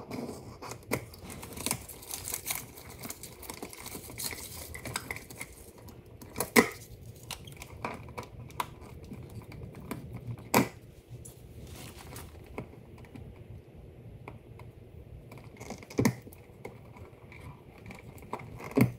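Hand tools working a plastic old-work (butterfly) electrical box set in drywall: a screwdriver turning its mounting screws and pliers gripping the box, giving a run of small clicks and scrapes. Four sharper clicks stand out, at irregular intervals.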